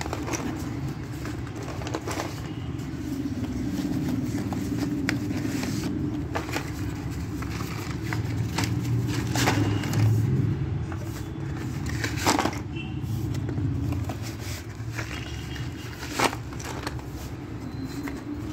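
Clear plastic bag crinkling and loose slate pencils clicking against each other as hands sort through them, with a few sharper clicks here and there. A steady low hum runs underneath.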